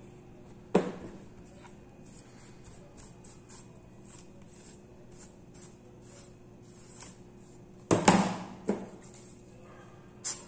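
Handling knocks from hands working on an opened laptop and picking up tools: one sharp knock about a second in, then a cluster of three knocks about eight seconds in, over a faint steady hum.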